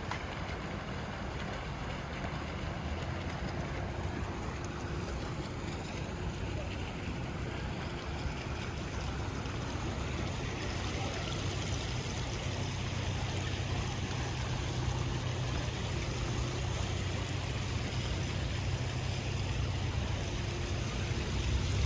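Steady rain ambience in a city street: an even hiss of rain and water on wet ground over a low steady mechanical hum. The hiss grows louder about halfway through.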